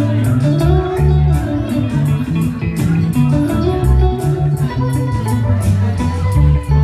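Live instrumental band: electric guitars playing over a bass guitar line and drums, the cymbals keeping a steady beat of about four strokes a second.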